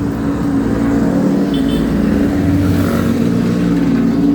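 Motor vehicle engine running steadily at a constant speed, with a steady low hum.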